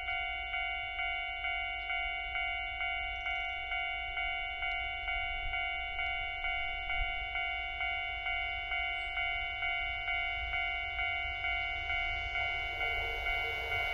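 Japanese railway level-crossing warning bell ringing steadily, about two ringing strikes a second. Near the end a rising rush of an approaching train joins it.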